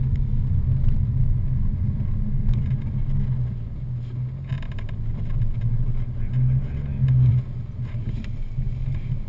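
Mitsubishi 4x4's engine running steadily as it drives over soft desert sand, heard from inside the cabin, with a brief knock about four and a half seconds in.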